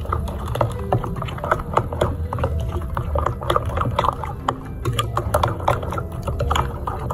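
Metal spoon stirring thick flour batter in a glass bowl: wet squelching with irregular clicks and scrapes of the spoon against the glass.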